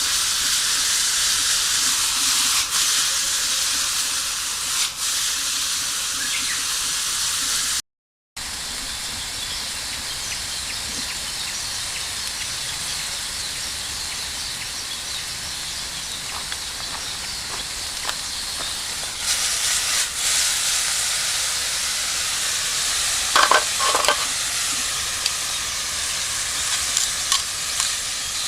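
Food sizzling in a Turk iron frying pan, a steady hiss. It breaks off for a moment about eight seconds in, and a few short clinks or scrapes come near the end.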